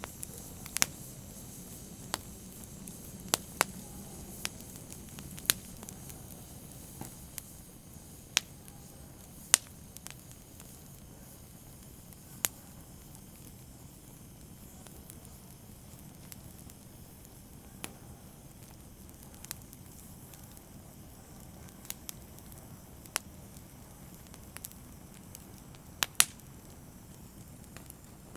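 Wood fire burning in a fireplace: a steady low rumble and hiss with sharp pops and crackles at irregular intervals, a few of them louder.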